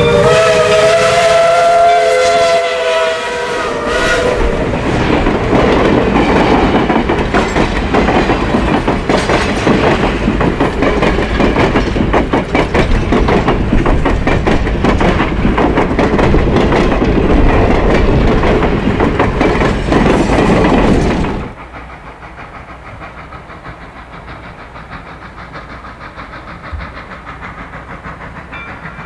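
Reading & Northern 425 steam locomotive's whistle blowing a chord as it passes close by, the pitch bending slightly. Then the clatter of the train rolling past for about fifteen seconds, wheels clicking rapidly over the rail joints. It cuts off suddenly to a much quieter, steady background noise.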